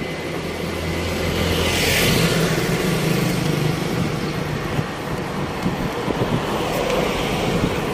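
Road traffic close by: motor vehicles running past with a steady engine hum, one passing vehicle swelling loudest about two seconds in and fading.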